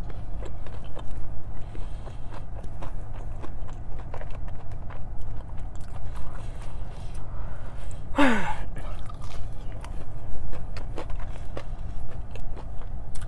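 Close-miked chewing and biting of food, with many small mouth clicks, over a steady low hum. About eight seconds in, a brief sound falls in pitch.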